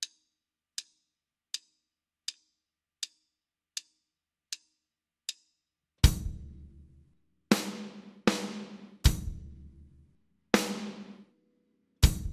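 Eight short, evenly spaced count-in clicks. About six seconds in, a drum kit starts playing a slow reading exercise in quarter and eighth notes at 40 bpm: single strokes of drum with cymbal, each ringing out before the next.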